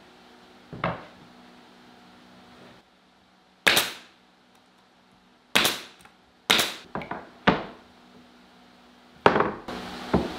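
Pneumatic nail gun firing nails into pine boards while a nightstand base frame is fastened: a series of about eight sharp shots at irregular gaps, a few of them fired in quick succession.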